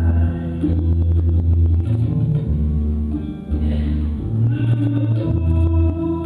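Music with long, deep bass notes that change about once a second under higher held tones; it dips briefly about three and a half seconds in.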